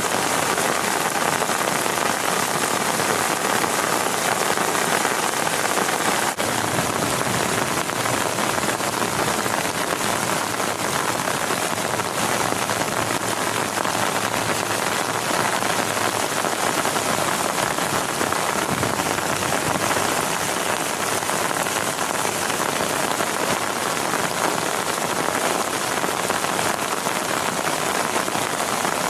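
Heavy rain falling steadily on a tent, a dense even patter with no letup.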